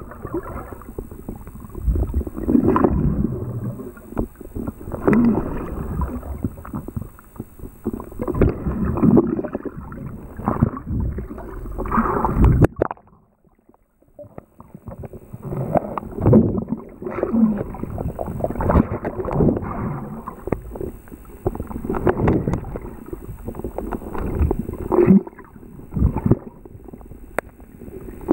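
Muffled water churning and rushing, heard from under the surface of a river, swelling in surges every second or two as a swimmer moves through it, with a short break about thirteen seconds in.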